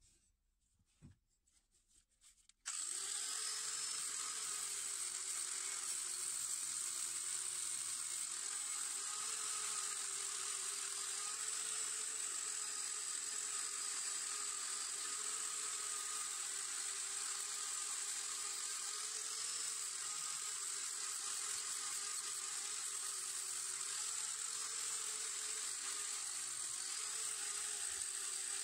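A few faint handling clicks, then about three seconds in a handheld electric rotary sander with an abrasive disc switches on and runs steadily with a high whine, sanding rust off a steel moped frame part.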